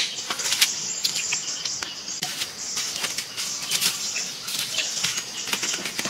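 Irregular rustling with many scattered light clicks and crackles, from dry leaf litter and the wicker basket being disturbed.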